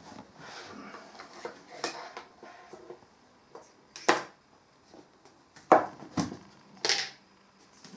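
A few separate sharp knocks and clatters, about five in all, the loudest a little past the middle, with quieter room sound between them.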